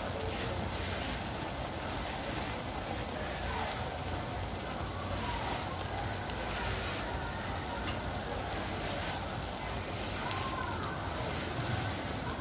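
Pot of dongo dongo (okra stew with tomato and onion) simmering, a steady watery hiss.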